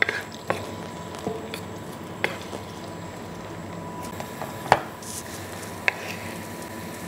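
Wooden spatula stirring minced garlic in oil in a wok, with several sharp taps of the spatula against the pan, the loudest a little under five seconds in, over a faint steady background.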